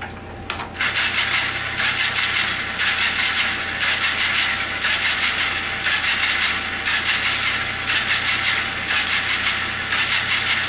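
Rear electric motor and gearbox of a remote-control truck running its free-hanging wheels, a rattly whirr from the gears. It starts about a second in, comes in roughly one-second surges with brief dips between, as a computer program drives it, and cuts off near the end.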